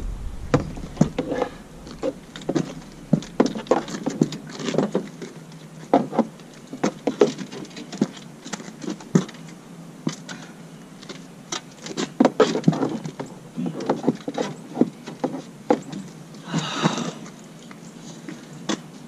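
Irregular knocks, taps and clatter of fishing rods being handled and pushed into an SUV's back seat, with a longer rustle about seventeen seconds in.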